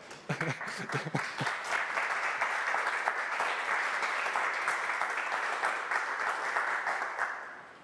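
Audience applauding, a roomful of people clapping steadily, then dying away near the end.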